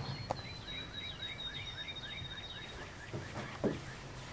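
Faint bird calls: a run of about ten short chirps, roughly four a second, with a thin high whistle over them. Two soft knocks fall near the start and near the end.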